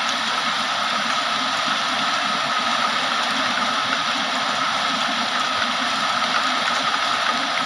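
Heavy rain pouring down steadily, a dense even hiss with no let-up and no thunder.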